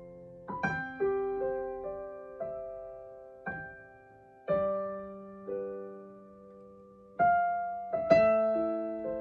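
Solo piano played slowly and softly: single notes and chords struck about once a second, each left ringing and fading, with a fuller, louder chord about eight seconds in.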